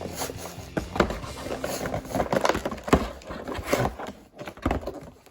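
A toy's cardboard-and-plastic packaging being handled and opened: an irregular string of sharp clicks, scrapes and crinkles, with background music underneath.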